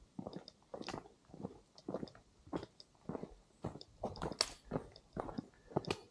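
Hikers' footsteps on a mountain trail, an even walking rhythm of about two steps a second.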